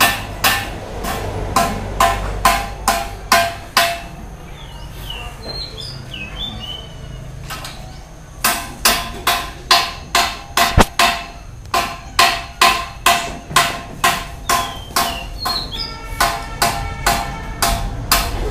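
Steady hammering, about two and a half blows a second, each blow ringing briefly. The blows stop for about four seconds from four seconds in, with birds chirping in the pause, then resume.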